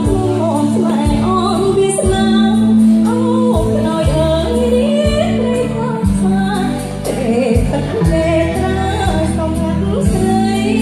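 A woman singing a song live into a handheld microphone, over amplified backing music with a steady beat.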